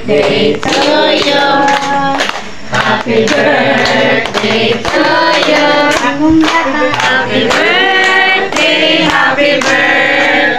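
A group of mixed voices singing a birthday song together, with hands clapping along.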